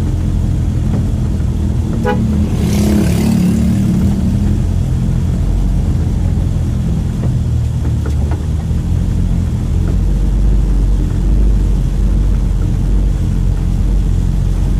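Mitsubishi L300 pickup's diesel engine running steadily under way, heard from inside the cab as a constant low drone. A short rushing noise comes through about two to three seconds in.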